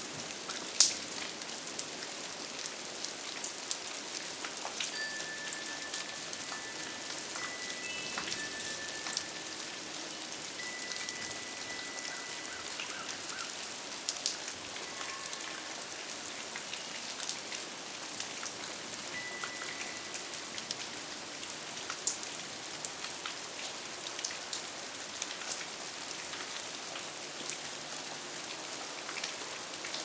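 Steady rain mixed with wet snow pattering on pavement and trees, with many individual drops ticking close by and one sharper tick about a second in.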